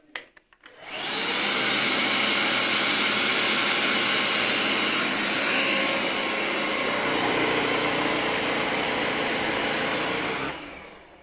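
Philips SpeedPro Max cordless stick vacuum starting with a couple of clicks, its motor spinning up about a second in and running steadily with a thin high whine, then winding down near the end.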